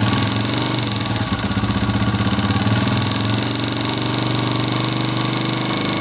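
Honda CG125's air-cooled single-cylinder pushrod engine idling steadily, picked up by a microphone held right against the cylinder head, so the mechanical top-end clatter is prominent. This is the cam noise that owners of the 2022 model complain of, which the mechanic traces to a vibrating cam pin.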